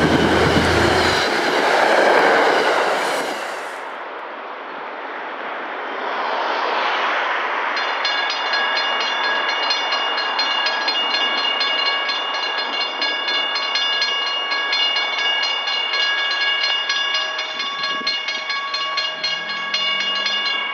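An NJ Transit passenger train rushing past, with a steady low horn tone ending about a second in. After a cut, railroad crossing bells start ringing about eight seconds in and ring steadily on: the crossing's warning for an approaching train, as the lights flash and the gates lower.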